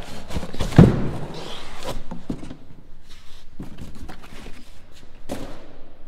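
Several thumps and knocks, the loudest about a second in, with rustling and scraping between: heavy suspension parts being handled and set down.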